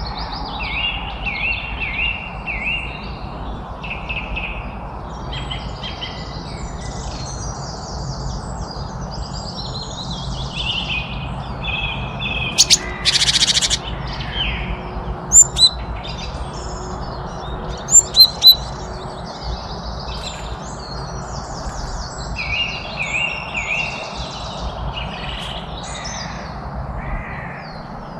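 Several wild birds chirping and singing, with overlapping calls and repeated short whistled notes, over a steady low background rush. A few loud, sharp chirps stand out about halfway through.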